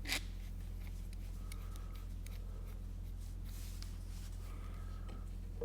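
Small clicks, taps and a short rustle of a pocket hole clamp and the glued cherry pieces being handled and set on the workbench, with one sharp click at the start, over a steady low hum.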